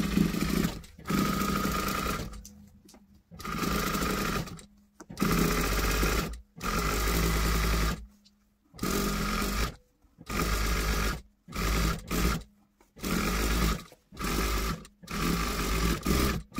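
Industrial straight-stitch sewing machine running in about a dozen short runs of roughly a second each, with brief stops between them, as a second row of topstitching is sewn along a fabric edge.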